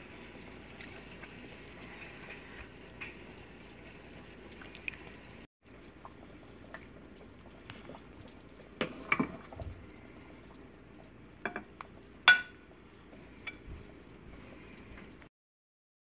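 Chicken nihari being ladled from the pot into a ceramic serving dish: thick gravy pouring, with a ladle clinking against the dish and pot a few times, the sharpest clink about twelve seconds in, over a steady low hiss.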